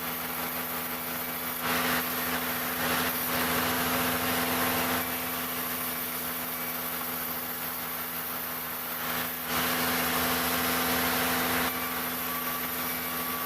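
Engine-driven wood-cutting machine running steadily. Twice it turns louder and harsher for a few seconds, the sound of the blade cutting through jackfruit wood.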